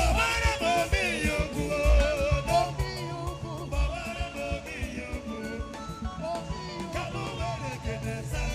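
Music with singing: a wavering vocal melody over a bass line and drum beats, a little quieter after the first couple of seconds.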